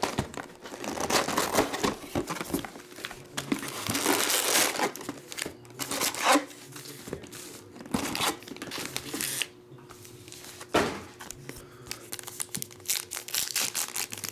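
Plastic wrapping and card-pack wrappers crinkling and tearing as a box of trading cards is unwrapped and its packs are handled, in a series of irregular rustling bursts. Near the end a card pack's wrapper is torn open.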